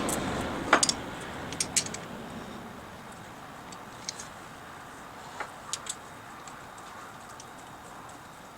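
Light metallic clicks and taps of small handguard hardware (clamp, bolt, washer) being handled and fitted together: a few in the first two seconds, then scattered single clicks around four to six seconds in.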